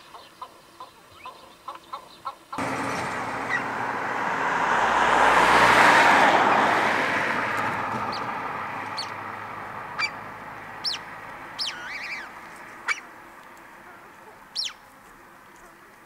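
A few short, evenly spaced clucking calls for the first two seconds. Then a broad rushing noise starts abruptly, swells to its loudest about six seconds in and slowly dies away. Small birds give several brief high chirps near the end.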